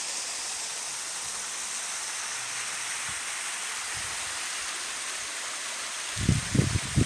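Steady rush of a waterfall's falling water. Near the end, a quick run of low thumps sounds over it.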